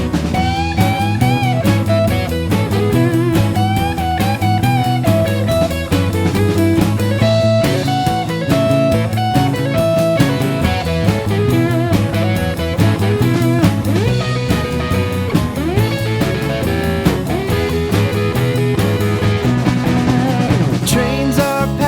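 Instrumental break in an upbeat rock-style song: electric guitar playing a bending lead melody over drums and bass with a steady beat.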